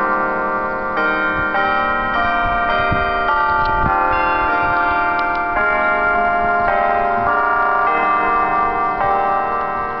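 Church bells chiming a tune from the belfry, one ringing note after another, every half second to a second, each note overlapping the last as it rings on.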